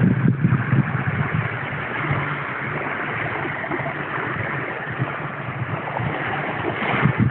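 Wind blowing across the microphone as a steady rush with gusty low rumbles, strongest near the start and the end, over the wash of small waves on the shore.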